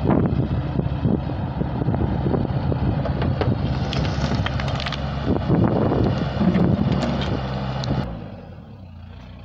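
Mini excavator's diesel engine running hard while its Viper VPH 2-700 rotary screening bucket works, with knocks and rattles from soil and stones in the bucket. About eight seconds in the engine drops back to a quieter, lower run.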